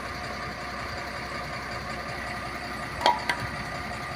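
Engine idling steadily, with two sharp metallic knocks about three seconds in.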